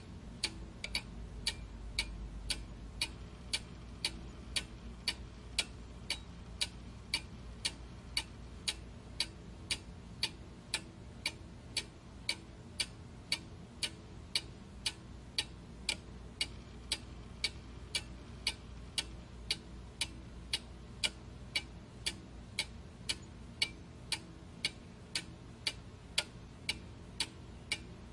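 Steady, evenly paced ticking, about two ticks a second, like a clock, over a faint low hum.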